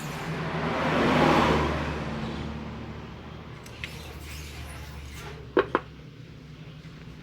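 A motor vehicle passing by, its noise and low hum swelling and then fading away over a few seconds. Two sharp clicks in quick succession near the end.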